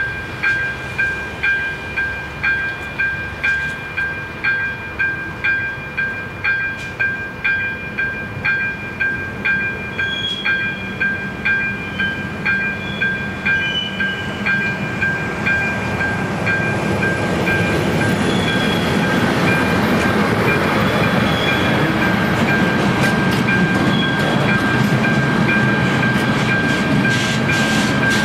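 AŽD ZV-02 electronic level-crossing bell ringing in a regular pulse a little under two strokes a second, with a high steady tone. From about halfway through, a ČD Cargo class 742 diesel locomotive grows louder as it approaches the crossing, and its engine and wheel noise drowns the bell's pulses.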